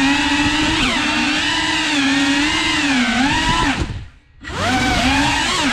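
Cinewhoop FPV drone's motors and ducted propellers whining, the pitch wavering up and down with the throttle. About four seconds in the sound drops almost to silence for about half a second, then comes back.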